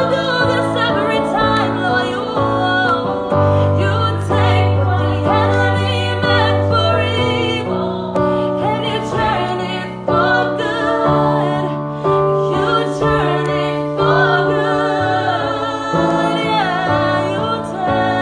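A woman singing a slow gospel song while accompanying herself on an electronic keyboard: her voice glides over held chords and sustained bass notes.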